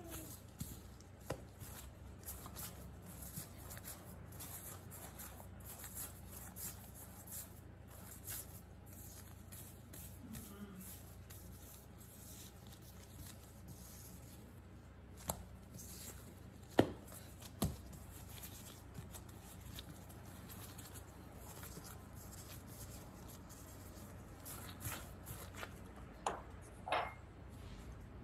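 Faint rubbing and scattered light taps of hands rolling baguette dough out on a granite countertop, over a steady low hum. A few sharper knocks come a little past halfway, and another cluster comes near the end.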